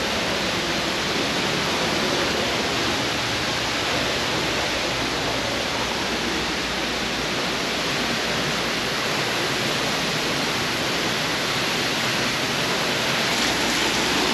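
Steady rushing of water from an indoor waterfall pouring into a rock pond.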